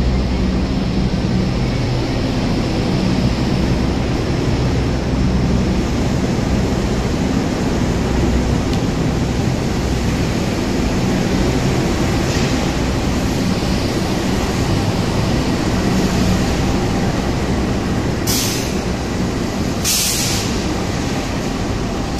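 A locomotive-hauled passenger train rolling slowly past while shunting in reverse: a steady rumble of wheels on rail with a low diesel hum, the CC 206 diesel-electric locomotive coming by at the end. Near the end come three short bursts of hiss.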